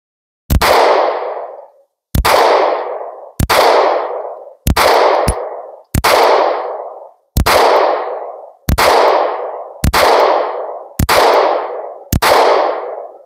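A SCCY CPX-2 9mm semi-automatic pistol fires ten shots of 115-grain full-metal-jacket ammunition at a steady pace, about one every 1.2 to 1.4 seconds. Each crack trails off in a long echo. The pistol cycles without a malfunction.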